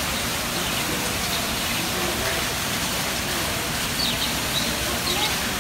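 Steady rush of a fountain's falling water, with a few faint budgerigar chirps about four seconds in.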